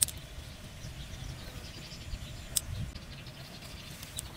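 Two sharp clicks, the second about two and a half seconds after the first, as hands handle freshwater pearl mussel shells and pick pearls from the flesh, over low steady background noise.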